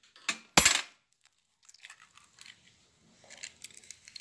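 An egg knocked twice against the rim of a clay mixing bowl to crack it, two sharp knocks close together, followed by faint rustling as the shell is pulled apart over the flour.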